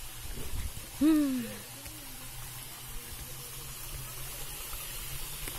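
A person's voice: one short falling hum about a second in, over a steady faint hiss and low hum.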